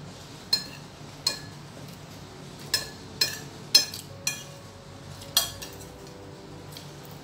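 Metal spoon and fork clinking and scraping against a plate while eating, about seven sharp clinks at irregular intervals.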